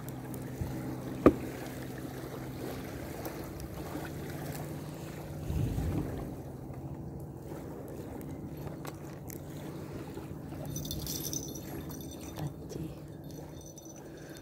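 Steady low hum of a running motor, with a single sharp click about a second in and a brief low rustle near the middle.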